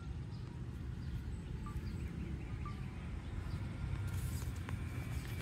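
Steady low rumbling background noise with a few faint, short bird chirps about two and three seconds in.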